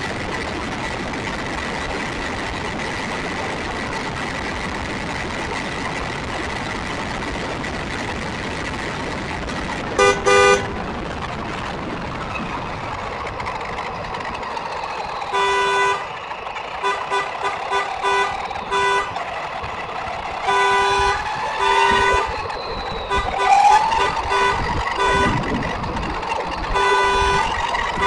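An RC buggy running on asphalt, heard from its onboard camera as a steady rush of motor and tyre noise with a thin whine. A vehicle horn blasts once about ten seconds in, then honks in many short repeated toots through the second half, over rising road-traffic engine sounds.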